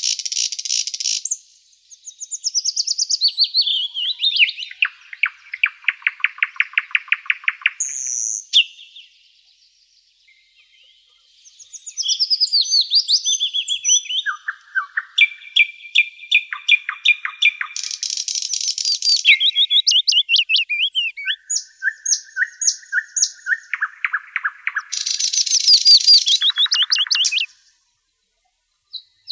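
Songbirds singing one song after another: fast trills, quick strings of repeated high notes and short sliding whistles. The song breaks off for a couple of seconds about a third of the way in and stops shortly before the end.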